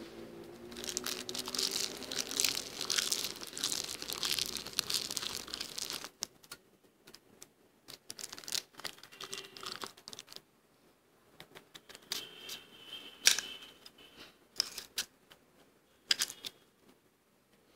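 Soft freezer frost crunching and crackling: a dense run of crisp crackles for about five seconds, then scattered single crunches and clicks.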